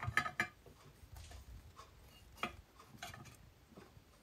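Light, scattered metallic clicks and taps as a perforated metal gauze cover is set into an aluminium motorcycle sprocket casing and small screws are picked up from the workbench: a few right at the start, a couple more about two and a half to three seconds in.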